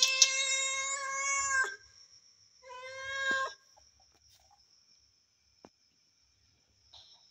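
A cat meowing twice: one long, drawn-out meow of nearly two seconds, then a shorter meow about three seconds in. A few sharp clicks sound right at the start.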